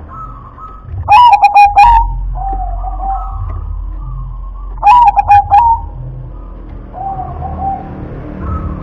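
Zebra dove (perkutut) cooing: two loud bursts of quick staccato coos, about a second in and about five seconds in, with fainter coos in between.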